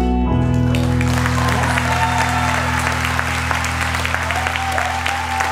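A song's accompaniment holding its closing chord while audience applause breaks out about half a second in and keeps going over it.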